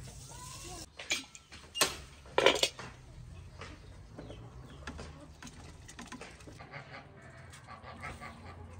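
Metal pans and lids clanking a few times, with hens clucking in the background.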